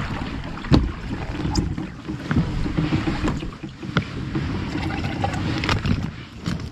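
Pedal-drive fishing kayak under way on calm water: a steady low rumble of water against the hull, with a few sharp knocks, the loudest about a second in.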